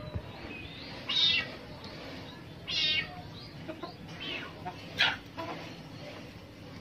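Two short, high-pitched animal cries about a second and a half apart, with a few fainter cries after them and a sharp, brief sound about five seconds in.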